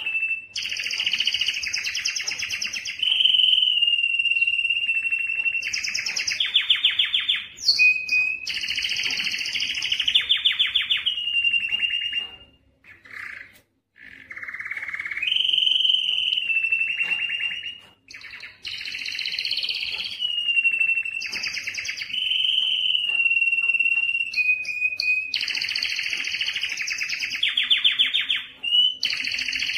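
Male domestic canary singing an excited breeding-season song: long phrases of rapid rolling trills and held whistled notes, broken by a short pause near the middle.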